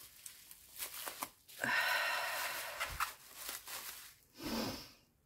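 Packaging being torn open by hand: a raspy tear lasting about a second and a half, amid light rustling and handling clicks of the wrapping.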